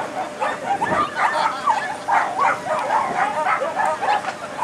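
Many dogs barking and yipping at once, short overlapping calls several a second.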